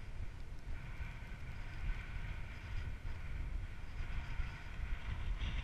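Wind buffeting an action camera's microphone: a steady, gusty low rumble with a thin hiss above it.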